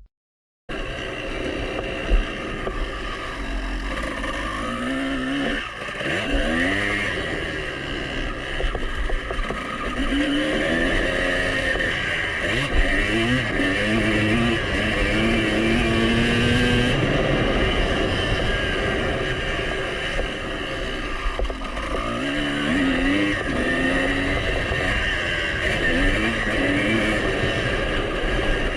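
2003 Honda CR250's single-cylinder two-stroke engine running hard, revving up and dropping back again and again as it is ridden around a motocross track. It starts about a second in.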